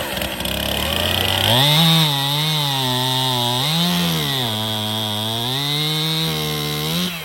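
Two-stroke gas chainsaw running hard through a log in a timed cut. It revs up about a second and a half in, its pitch sags and recovers a few times as the chain loads in the wood, then it drops off near the end.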